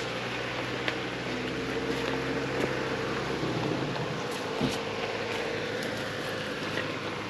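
Jeep Wrangler engine running steadily at low revs while crawling up a steep rock climb, with a few short knocks.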